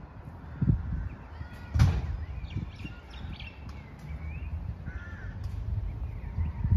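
Birds calling, short chirps and calls scattered through, over a low steady rumble, with two thumps about a second and two seconds in, the second the loudest.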